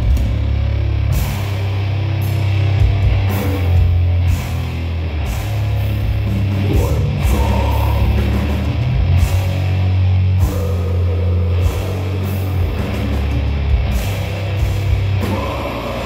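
Heavy metal band playing live: electric guitars and a drum kit with repeated cymbal crashes over a heavy, booming low end.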